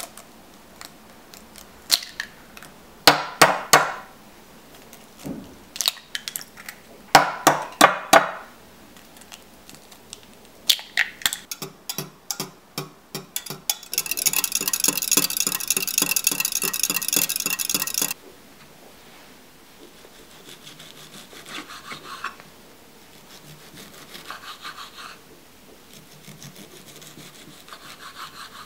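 Eggs knocked against the rim of a glass measuring jug, sharp knocks in pairs, then the eggs beaten in the glass jug with a metal utensil, a fast clinking rattle for about four seconds. After that, a knife chopping broccoli heads finely on a wooden cutting board, soft repeated strokes.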